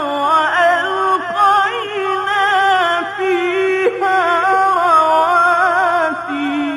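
A male reciter's voice in melodic, ornamented Quran recitation (tajwid). He holds one long phrase with a wavering, embellished pitch, and it falls away at the very end.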